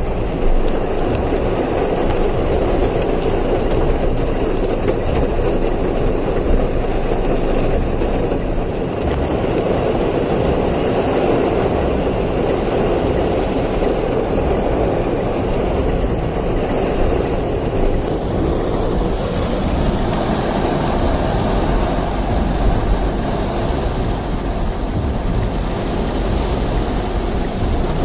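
Fast-flowing floodwater rushing across a flooded street in heavy rain: a loud, steady rushing noise.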